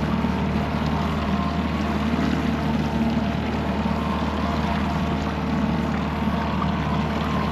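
Boat motor running steadily at trolling speed: an even low drone with a steady hiss over it.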